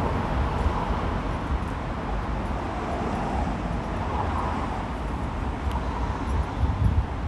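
Steady urban street ambience: a traffic hum with a low rumble, and a few low thumps near the end.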